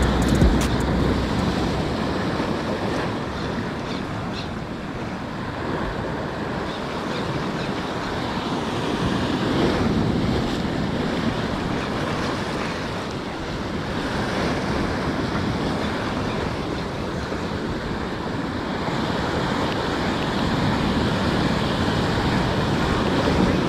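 Sea surf washing in and breaking against a rocky shoreline ledge, the wash swelling and easing every few seconds.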